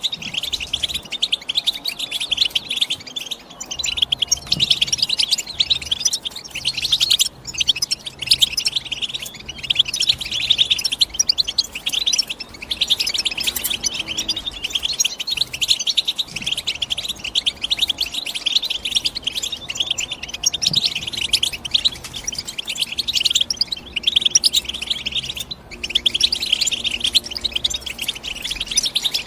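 European goldfinch singing: a fast, unbroken run of high twittering chirps and trills, with a few brief pauses.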